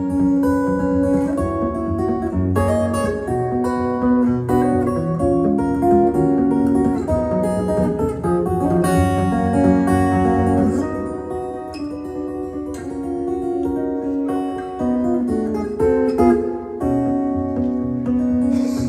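Solo acoustic guitar played fingerstyle, a continuous instrumental of picked notes over a bass line.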